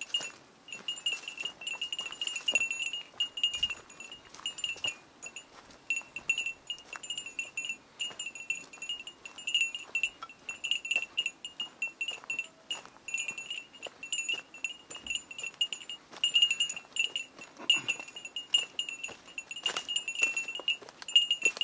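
A small metal bell, a hiker's bear bell, jingling over and over in an uneven walking rhythm, with light footsteps crunching on dry twigs and leaf litter.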